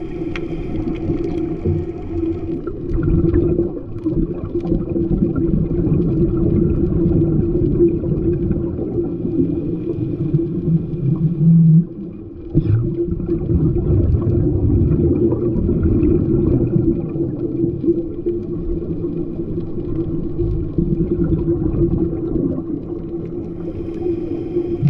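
Muffled underwater rumble picked up by a GoPro in its waterproof housing: a steady low drone that briefly drops away about halfway through.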